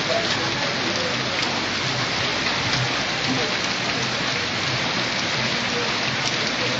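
Heavy rain falling steadily on a wet paved street: an even, unbroken hiss of drops on the road.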